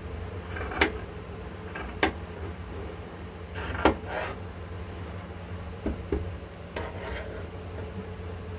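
Tailor's scissors snipping through shirt fabric: three sharp snips, about a second in, two seconds in and near four seconds in, then a few fainter clicks, over a low steady hum.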